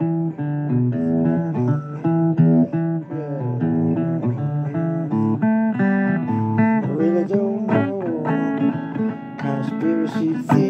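Blues guitar music: an instrumental passage between sung lines, with a run of changing notes, some sliding in pitch.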